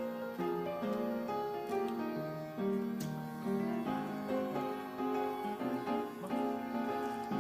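Background instrumental music with piano-like keyboard notes.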